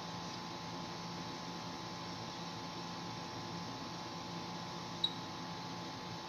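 Steady electrical hum with background hiss. There is one short, sharp click about five seconds in.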